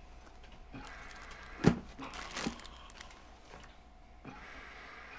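A briefcase and a clear plastic zip bag being handled: a sharp knock from the case about one and a half seconds in, a lighter knock about a second later, with soft plastic rustling around them.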